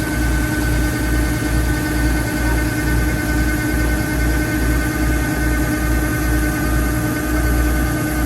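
Rice combine harvester running steadily, its engine giving a low throb that pulses a couple of times a second under a steady whine.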